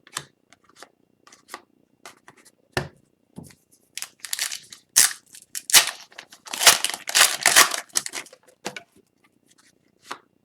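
Wrapper of an Upper Deck Series 2 hockey card pack being torn open and crinkled. The tearing comes as a dense run of rasping noises in the middle, between scattered small clicks and rustles.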